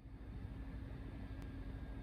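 Steady low rumble with a faint steady hum, fading in quickly at the start, with one brief click about one and a half seconds in.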